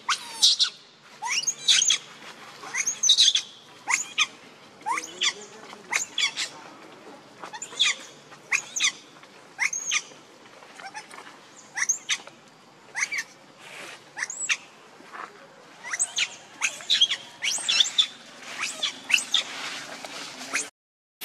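Infant macaque crying in a run of short, high-pitched squeals, one every half second to a second, begging its mother for milk.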